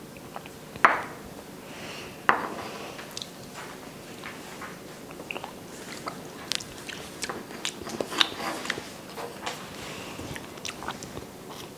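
Close-up mouth sounds of eating soft agar-jelly raindrop cake: wet smacking and squishing chews, with two sharp clicks about a second and two seconds in and a busier run of smacks later on.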